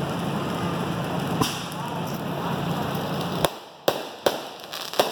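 Consumer fireworks going off: four sharp bangs over a steady rushing hiss that cuts off about three and a half seconds in.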